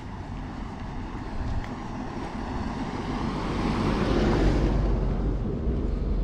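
A car driving past: its engine and tyre noise swells to a peak about four seconds in, then fades, over a low rumble of wind on the microphone.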